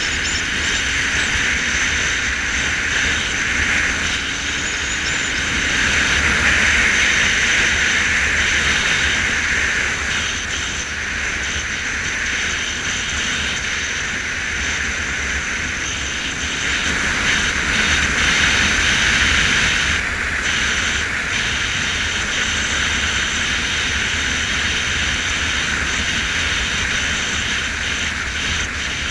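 Motorcycle riding at steady cruising speed: wind and road noise rushing over the camera, with the engine running steadily underneath. The rush swells a little twice.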